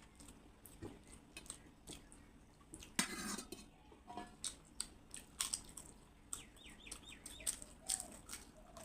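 Close-up eating sounds: wet chewing and mouth clicks with crackly crunches, and a louder crunch or clatter about three seconds in. A bird calls repeatedly in the background, with a quick run of chirps near the seven-second mark.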